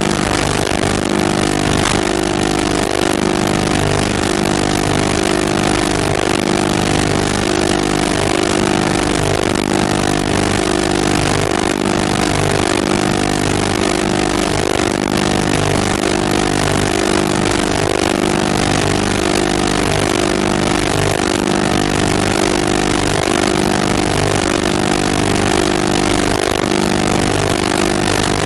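A steady, unchanging mechanical drone with a constant hiss, like an engine running.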